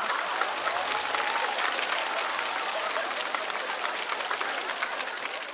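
Studio audience applauding, a dense patter of many hands clapping that thins out and fades near the end.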